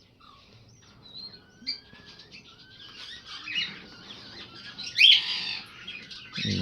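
Pet cockatiels chirping and whistling in an aviary: a busy mix of short calls and sliding whistles that grows denser, with one louder harsh squawk about five seconds in.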